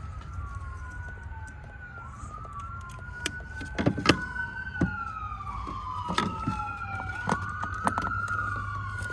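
Emergency-vehicle sirens wailing, at least two at once, their pitches slowly rising and falling and crossing each other, over a steady low hum. Several sharp knocks sound in the middle.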